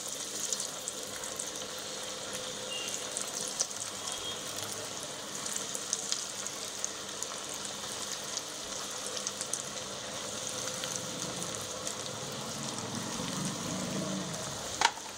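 Breadcrumb- and cornflake-coated paneer pieces deep-frying in hot oil in a wok: a steady sizzle with small crackles and pops, as more pieces are slipped into the oil. The oil is on a medium-to-high flame.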